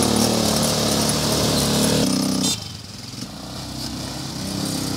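250cc ATV quad bike engine running steadily. It drops off sharply about halfway through, then builds back up near the end.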